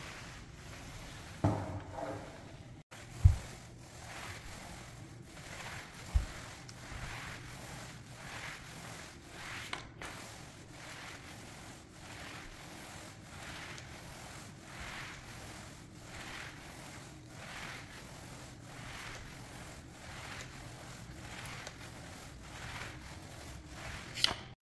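Polyurethane applicator pad on a pole being pushed back and forth over a hardwood floor, spreading a wet satin finish coat: soft repeated swishes, roughly one a second. A sharp knock about three seconds in, with smaller knocks before and after it.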